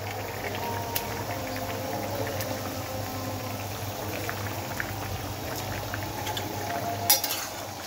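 Thick flour-thickened fish curry bubbling at a steady boil in an open pot, with scattered small pops and one sharper clink about seven seconds in.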